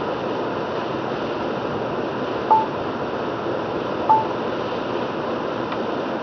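Steady tyre and road noise of a car driving on a wet, rain-soaked road, heard from inside the car. Two short, high electronic beeps sound about a second and a half apart, midway through.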